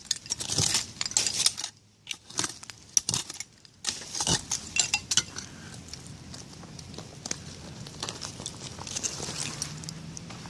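Digging through a bottle dump: glass shards and buried debris clinking and rattling against each other and the tool. There are many sharp clicks in the first few seconds, then sparser, softer scraping.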